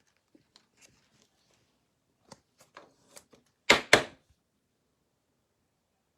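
Trading cards and their packs being handled at a table: light ticks and short rustles, then two sharp, loud handling sounds close together a little before the middle.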